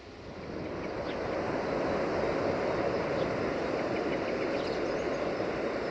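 A steady outdoor rushing noise that swells over the first two seconds and then holds, with a few faint high chirps.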